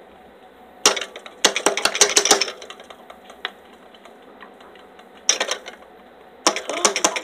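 Rattling and clattering of small hard objects being handled. There is a click about a second in, then a longer rattle, and two shorter spells near the end.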